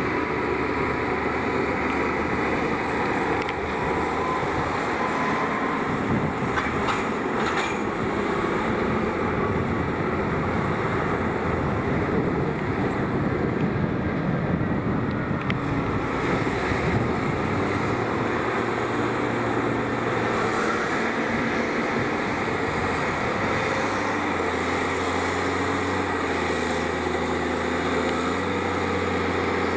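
Several farm tractors' diesel engines working under load on a silage clamp as buckrakes push and spread cut grass. The engines drone steadily, with their note shifting up and down.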